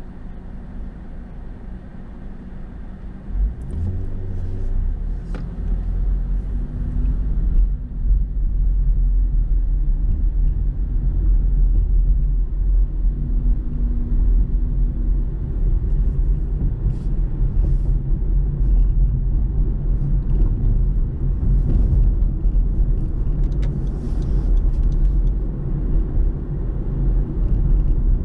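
Car on the road: steady low engine and road-noise rumble that grows louder about three and a half seconds in, then holds steady.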